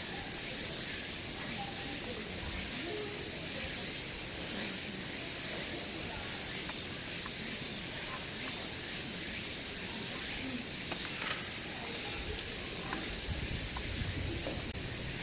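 Steady, high-pitched chorus of summer cicadas buzzing without a break, with faint distant voices beneath.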